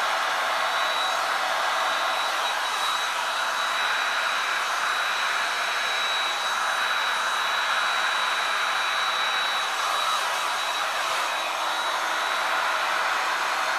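Hair dryer blowing steadily at a constant speed, used to push wet acrylic pouring paint across the canvas in a Dutch pour. A thin, steady high whine rides over the rush of air.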